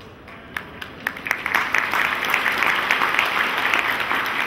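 Audience applauding: a few scattered claps about half a second in, swelling to full, steady applause by about two seconds.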